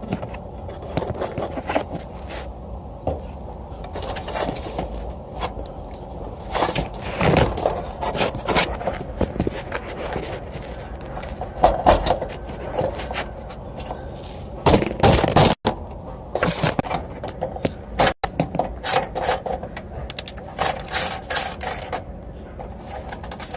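Irregular clicks, scrapes and metallic clatter of hand tools and parts being handled on an air-conditioning condenser during its removal, with two very brief cut-outs about two thirds of the way through.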